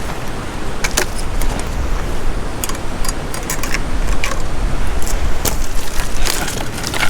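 Gathering firewood on a river gravel bar: scattered sharp clicks and clatters of sticks and stones, including a quick run of ticks about three seconds in, over steady noise with a low rumble.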